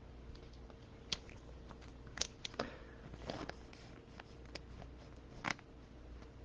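Faint scattered clicks and rustles of trading cards and their plastic sleeves being handled, a handful of small separate sounds over a low steady background hum.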